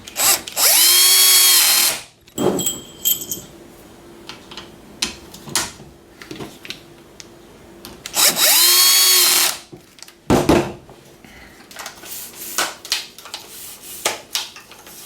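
Small Bosch cordless power drill driving screws into a pole clamp, set low on the screw clutch. It makes two short runs, one near the start and one about eight seconds in, each spinning up and then holding a steady whine for about a second and a half. Light clicks and knocks of handling come in between.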